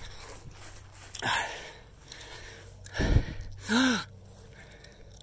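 A man breathing hard after running, with a loud gasping breath about a second in and a short voiced sigh near four seconds. A brief thump comes just before the sigh.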